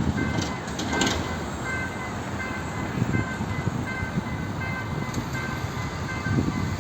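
TCDD MT 5700 diesel multiple unit running, a steady rumble with rattles, under a faint two-note beep that repeats roughly every half second.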